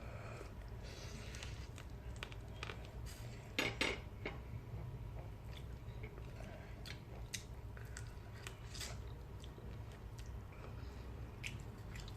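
Eating sounds during a fried-fish meal: chewing, with scattered light clicks and taps against dishes. A louder short clatter comes about three and a half seconds in.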